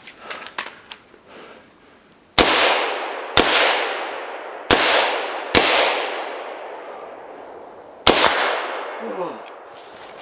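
Five rifle shots: four about a second apart, then a fifth after a pause of about two and a half seconds, each followed by a long fading echo.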